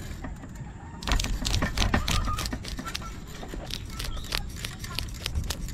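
Knife scraping the scales off a raw milkfish (bangus) on a wooden cutting board: a quick, irregular run of short rasping scrapes that starts about a second in.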